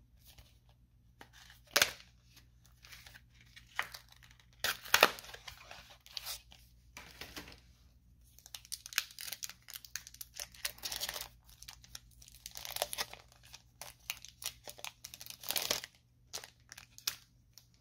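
Foil wrapper of a Magic: The Gathering Ikoria booster pack crinkling in the hands and being torn open, in irregular sharp crackles and rips.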